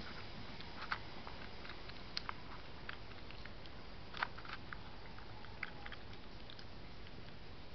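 European badger eating from a dish, irregular crunches and clicks of chewing over a steady hiss.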